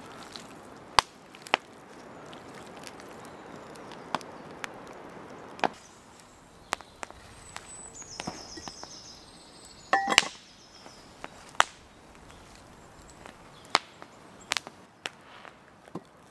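Wood campfire crackling, with sharp irregular pops and snaps about once a second.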